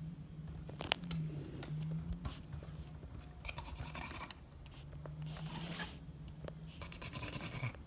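Short spells of scratchy rustling, about four of them, over a faint low steady hum.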